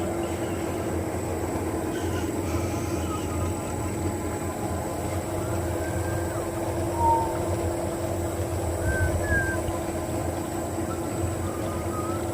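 Machinery running steadily with a low rumble, a constant hum and a thin high whine, with a few faint squeaks over it and a short bump about seven seconds in.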